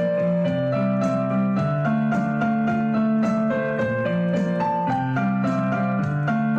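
Background piano music: held notes and chords stepping from one to the next about every half second.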